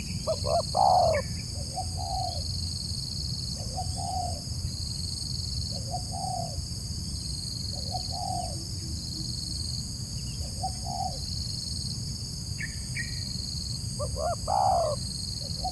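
Spotted dove (tekukur) cooing. A loud multi-note coo phrase comes at the start and again near the end, with single softer coos about every two seconds between.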